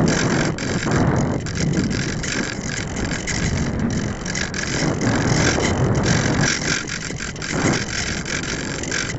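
Airflow rushing over the microphone of a small keychain camera riding on an unpowered F3K discus-launch glider in flight: a steady, loud noise that rises and falls in level as the glider banks and changes speed.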